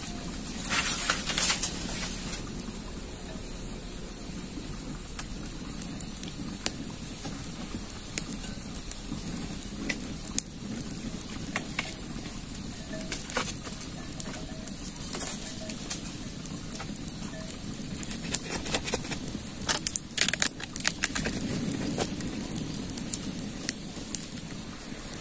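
Dry bamboo poles clattering and knocking as they are handled and leaned against a rock, with scattered sharp clicks and a few short bursts of rustling.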